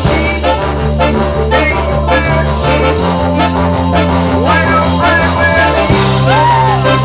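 Live big band playing an instrumental groove: a steady drum beat over a held bass line and sustained chords. Near the end a melody line bends up and down in pitch.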